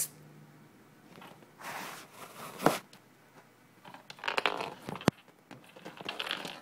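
Intermittent rustling and scuffing of fabric as a cat squirms and rolls on its back on bedding, with two sharp clicks, one about two and a half seconds in and one about five seconds in.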